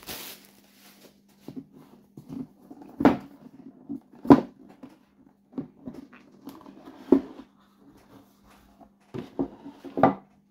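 Cardboard board-game box being handled and its lid opened: scattered knocks, taps and scrapes of cardboard against a tabletop. The four loudest knocks come about 3, 4, 7 and 10 seconds in.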